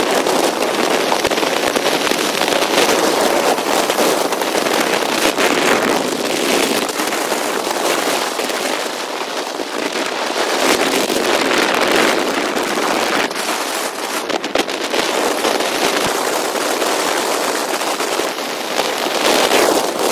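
A car driving through road tunnels: a loud, steady rushing noise of wind and road noise on the microphone, with a constant crackle.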